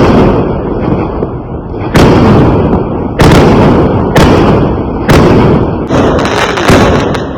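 Fireworks going off: a series of loud bangs, each trailing off into a rumble, about one a second at first and coming faster near the end.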